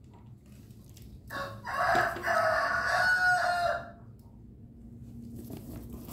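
A rooster crowing once: a short first note a little over a second in, then a long held call of about two seconds.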